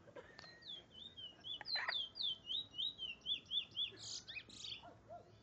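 A Trinidad bullfinch (chestnut-bellied seed finch) singing: a quick run of repeated down-slurred whistled notes, about four a second, ending in a few louder buzzy notes.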